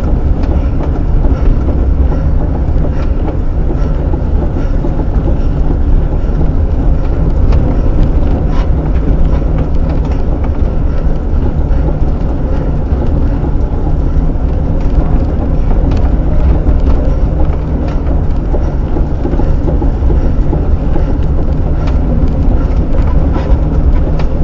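Milan SL MK2 velomobile rolling at race speed, heard on board: a loud, steady low rumble of tyres and drivetrain carried through the shell, with a few faint sharp ticks.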